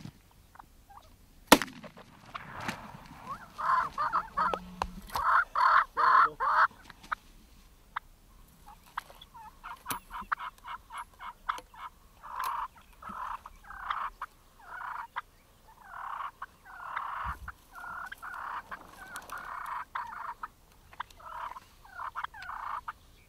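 Wild turkey gobblers, Merriam's and Rio Grande, gobbling again and again, several birds answering and overlapping one another. A single sharp, very loud bang comes about a second and a half in.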